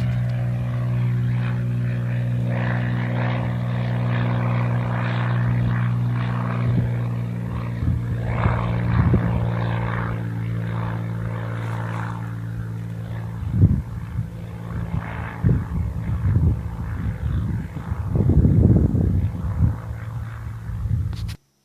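Cessna 206's single piston engine and propeller running steadily at a constant pitch. Irregular rushing gusts and knocks grow through the second half, and the sound cuts off abruptly near the end.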